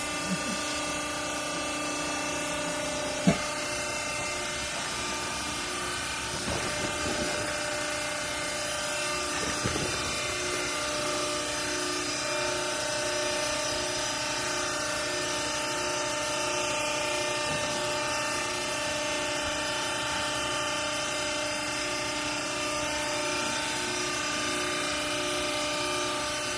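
Vertical downstroke clothing baler's hydraulic power unit running steadily: an electric motor and pump hum with several steady tones. A single sharp knock about three seconds in.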